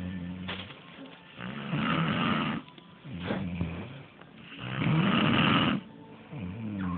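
A sleeping person snoring: two long snores about three seconds apart, with quieter, pitched breaths between them.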